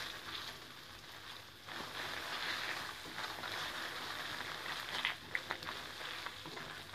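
Metal spatula stirring and scraping broken jaggery in hot ghee in a metal kadhai, with a soft sizzle as the jaggery melts. A few sharper scrapes come about five seconds in.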